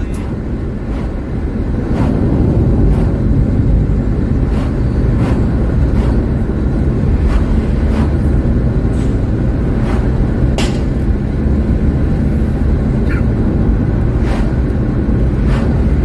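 Low, steady rumble of a car on the move, heard from inside: road, engine and wind noise, growing louder about two seconds in. Light ticks come at a fairly regular pace through much of it.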